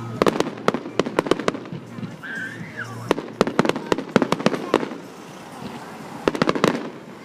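Fireworks going off in rapid sharp cracks and bangs, coming in three quick bursts with short lulls between them.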